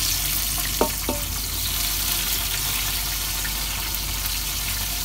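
Hot oil sizzling steadily in a large pot as sliced tomatoes are dropped by hand onto fried, browned onions, with two light clinks about a second in.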